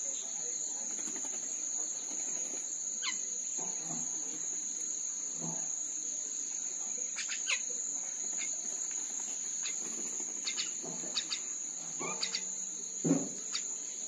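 A steady high-pitched insect drone, like crickets or cicadas, with short sharp falling calls from common mynas now and then, several of them in the last few seconds.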